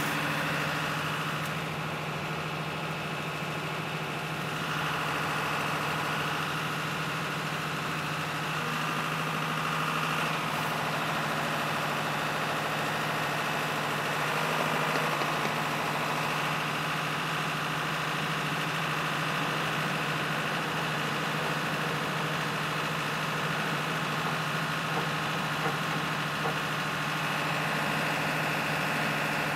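An engine running steadily at a constant pitch: an even low hum with a steady higher whine over it, unchanging throughout.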